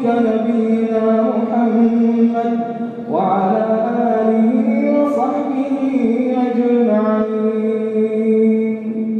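A man's voice chanting an Arabic supplication in long, drawn-out melodic phrases, an imam intoning a dua; a new phrase begins about three seconds in with a rising slide in pitch.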